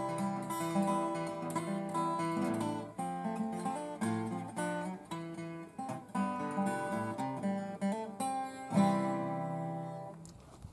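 Solo small-bodied acoustic guitar, a picked melody over bass notes. About nine seconds in he ends on a strummed chord that rings out and fades.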